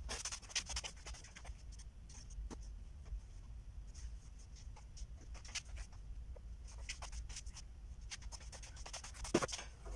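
Small objects and tools being handled on a desk: light scratching, rubbing and scattered clicks, with a sharper knock near the end.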